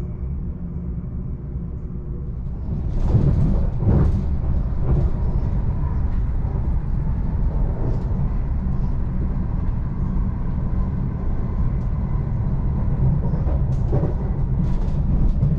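Class 745 Stadler FLIRT electric train heard from inside the carriage while running at speed: a steady low rumble that grows louder and harsher a few seconds in, with irregular sharp clatters every second or so at first and again near the end.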